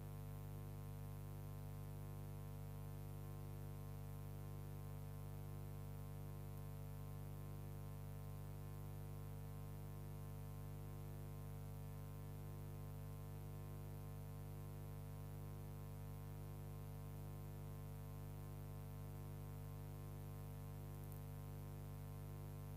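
Steady electrical mains hum with a ladder of overtones, unchanging and with no train or other sound above it.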